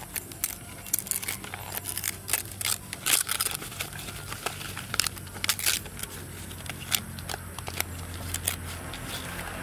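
Fresh rolled-up banana leaves being pulled open and torn by hand: irregular crisp crackles and rips of the leaf blades.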